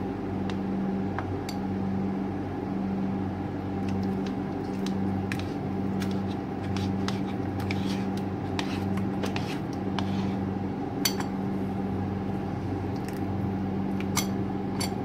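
A spoon pressing thick avocado paste through a plastic mesh sieve: soft scraping and squishing with scattered sharp clicks of the spoon against the strainer. A steady low hum pulses about once a second underneath.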